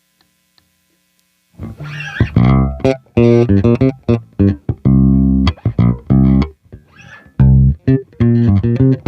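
Yamaha ERB 300 II electric bass with PJ pickups played solo, a line of plucked notes, some short and choppy and some held. The playing starts about a second and a half in, after a faint electrical hum.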